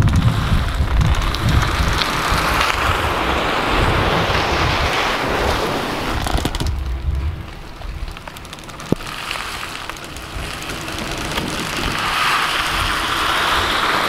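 Rain and wind on the microphone mixed with a vehicle running as it pulls a rope-tied bulk bag of soil off a trailer. The noise dies down in the middle, with one sharp click about nine seconds in, then builds again.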